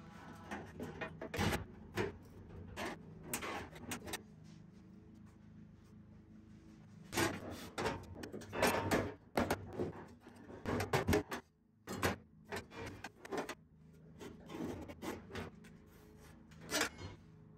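Irregular taps, knocks and rubbing of hands and tools against the sheet-metal cab, over a steady low hum.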